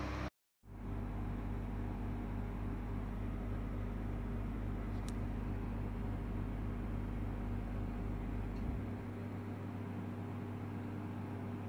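A steady low hum with hiss of room background noise. It drops out completely for a moment just after the start, there is a faint tick about five seconds in, and the deepest part of the hum stops about nine seconds in.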